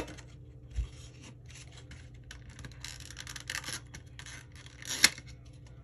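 Hands handling and scraping a trading-card tin's plastic packaging, with intermittent scratchy rustles. A sharp click about five seconds in is the loudest sound.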